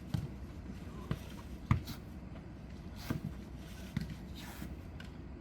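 Jokgu ball being kicked and bouncing on the court: about five sharp thumps at uneven intervals, the loudest a little under two seconds in.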